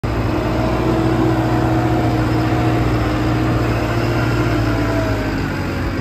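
JCB 3CX backhoe loader's diesel engine running steadily, its pitch easing down a little about five seconds in.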